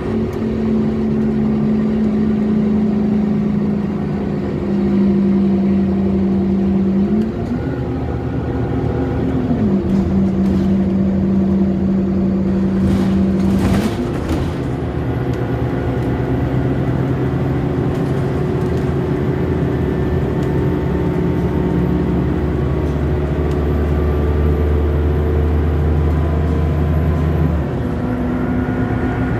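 Scania K230UB bus's diesel engine and ZF automatic gearbox heard from inside the cabin while the bus gathers speed. The engine note rises and then drops with each upshift, about five, ten and fourteen seconds in, then runs steadier.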